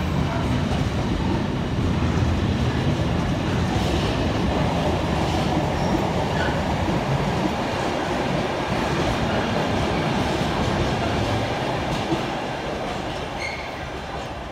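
Wheels of a Freightliner intermodal container train's flat wagons rolling past on the rails, a steady noise that fades near the end as the last wagon goes by.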